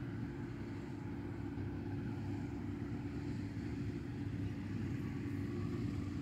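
An engine running steadily at a constant speed, a low drone with a steady hum and no change in pitch.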